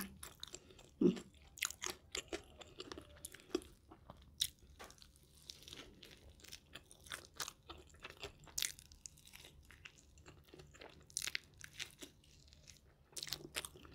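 Close-miked chewing and biting of a beef cheeseburger: irregular mouth clicks and crunches, with a couple of fresh bites into the burger.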